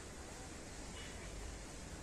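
Faint steady background hiss with a low rumble underneath, and no distinct event.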